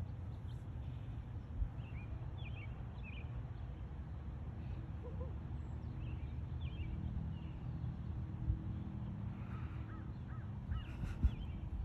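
Outdoor ambience: small birds chirping in short clusters now and then over a low, steady rumble, with three soft thumps.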